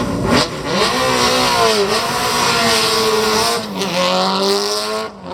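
Subaru Impreza WRC97 rally car's turbocharged flat-four accelerating hard. The engine note climbs and drops back at each gear change, about three shifts.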